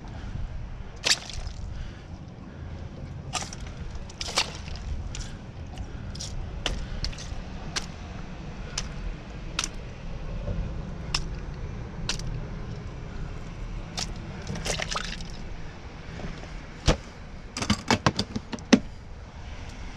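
Hands rummaging in a plastic cooler of water: scattered sharp clicks, knocks and small splashes, with a quick run of louder knocks near the end, over a low steady rumble.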